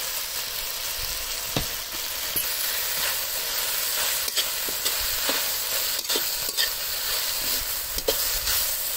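Shredded cabbage, carrot and capsicum sizzling in a steel kadai as they are stir-fried, a steady hiss with a metal spatula scraping and clicking against the pan many times.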